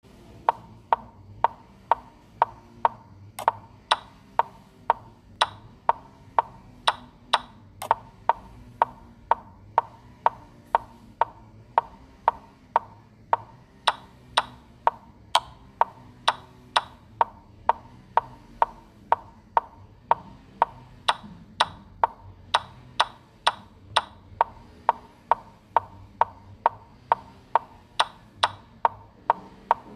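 Chess-board move sound effects: a short, sharp wooden click for each move played in a fast game replay, about two a second. Some clicks are brighter than others.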